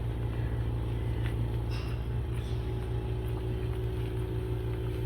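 Steady low machine hum, even in pitch, with a few faint brief higher sounds about one to two seconds in.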